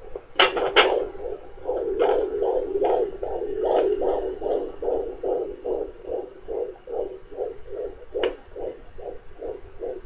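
Home fetal doppler picking up an 18-week fetus's heartbeat: a fast, even pulse of between two and three beats a second that starts about two seconds in. Two sharp knocks come just before it, and another near the end.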